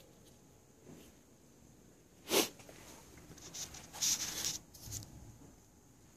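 Handling noise: a short, sharp rustle about two seconds in, then a run of irregular scrapes and rustles of plastic and fingers as the white dealer-mode diagnostic connector is pulled out from behind a scooter's plastic panel and handled with a red wire jumper.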